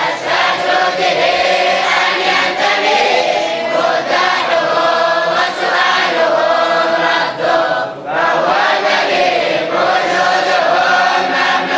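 Many boys' and men's voices chanting a religious recitation together in unison, slow and drawn out, with a brief dip about eight seconds in.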